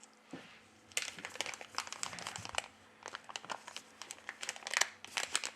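Light crinkling and small clicks of plastic being handled, in two bouts of crackling separated by a short pause.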